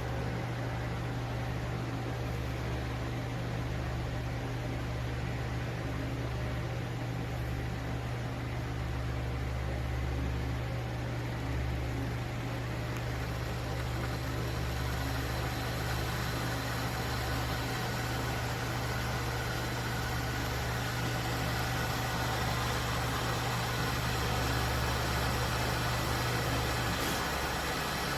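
Fellow Stagg EKG electric gooseneck kettle heating water: a steady electrical hum under a hiss that grows louder as the water heats. The hum cuts off near the end, as the heating element switches off.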